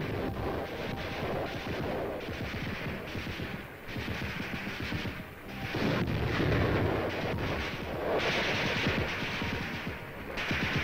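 Battle noise of military maneuvers: rapid rifle and machine-gun fire mixed with explosions, in dense volleys with a couple of brief lulls, loudest a little past the middle.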